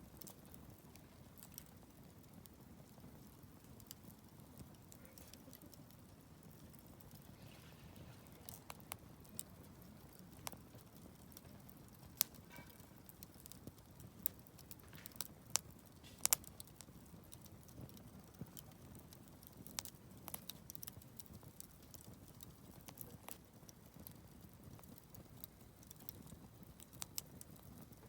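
Wood fire burning and crackling: irregular sharp pops and snaps over a faint, steady low rush of flame, the loudest pops around the middle.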